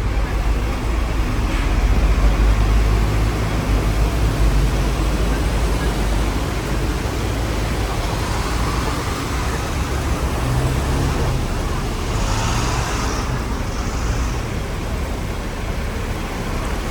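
Hong Kong double-decker tram running along the street, a steady low rumble with road traffic noise around it, heaviest in the first few seconds. Two short hisses come about two thirds of the way through.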